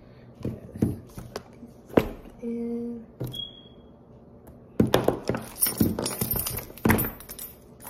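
Items clicking, knocking and rustling as they are handled and put back into a small backpack, with a busy run of metallic jangling and clatter from about five to seven seconds in.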